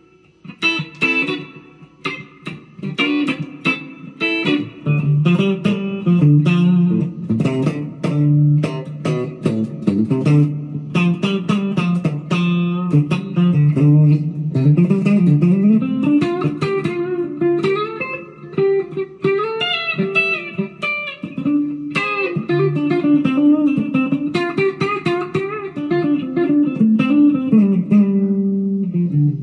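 Firefly FFLPS Les Paul-copy electric guitar played through an amp on its bridge pickup: picked single notes and short runs, with slides a little past the middle, ending on a held ringing note. The player finds the tone a little dull.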